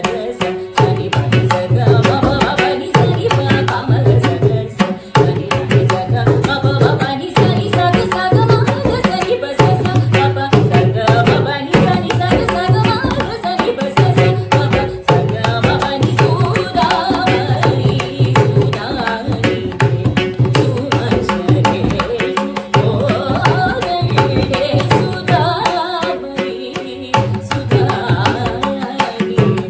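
Carnatic vocal music accompanied on the mridangam: a woman singing a melodic line while the double-headed drum keeps up a dense, continuous stroke pattern with deep bass strokes, over a steady drone.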